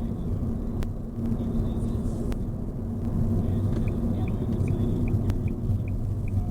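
Steady low road and engine rumble of a car in motion, heard from inside. About four seconds in, a short high beep starts repeating about two and a half times a second.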